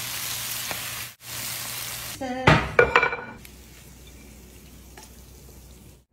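Squid stir-fry sizzling in a nonstick pan as it is tossed, the sizzle briefly cutting out about a second in. Around two and a half seconds in come a few loud clattering knocks of utensils against the pan. After that it goes much quieter, with faint clicks of tongs as the food is served onto a plate.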